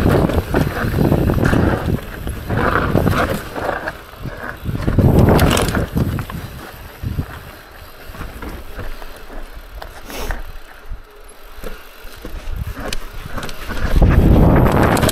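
Mountain bike being ridden down a dirt forest trail: tyre and chassis noise as it rolls over rough ground, with wind on the microphone. It is loudest over rough ground at the start, around five seconds in and near the end, and quieter between, with a few sharp clicks.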